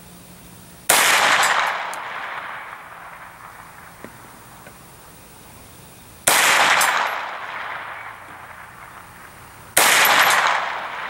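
Three single shots from an AR-9 9mm carbine, a few seconds apart (about a second in, around six seconds in, and near the end), each a sharp crack whose echo dies away over a second or two. The rounds are light-bullet reloads that the shooter thinks are probably too light for the gun to cycle well, and which he says sounded funny.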